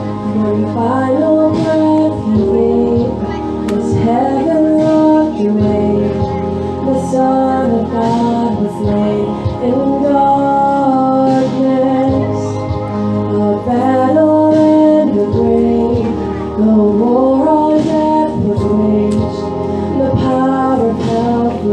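A worship song: a sung melody over sustained instrumental accompaniment.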